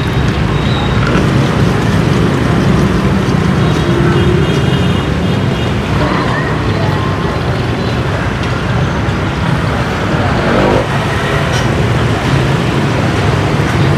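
Steady street traffic noise with a constant low rumble of passing motor vehicles.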